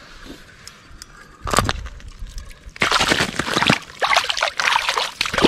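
A small brook trout splashing and thrashing in the water of an ice-fishing hole as it is hauled up through the ice. A short burst about a second and a half in, then continuous splashing over the last few seconds.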